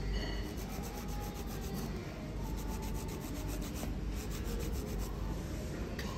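Fingernails being filed or buffed, a continuous scratchy rasping of quick repeated strokes.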